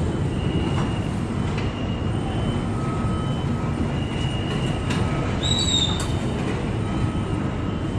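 Steady construction-site din with a rumble, broken by short high whining tones that come and go, and a brief high squeal about five and a half seconds in.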